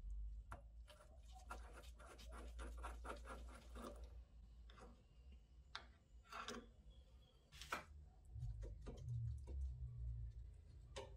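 Hand work on a small rusty metal reel: a quick run of scraping strokes, then a few separate sharp clicks, with a low rumble late on.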